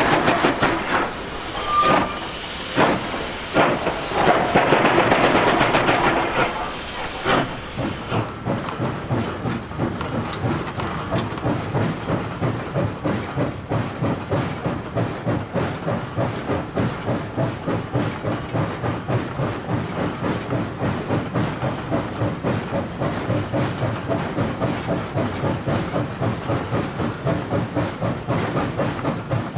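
China Railways JS class 2-8-2 steam locomotive heard from inside its cab: loud steam hissing with sharp bursts for the first several seconds, then the locomotive running with a steady, rapid rhythmic beat of about two to three strokes a second.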